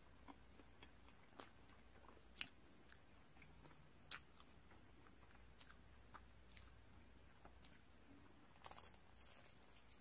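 Faint chewing of bread and pastry, with scattered soft clicks and small crunches. Near the end there is a short cluster of crackly bites into a croissant.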